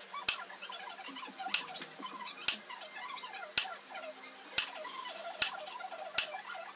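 Hammer striking a hand chisel to chisel marking lines into a metal workpiece: seven sharp metallic taps, about one a second.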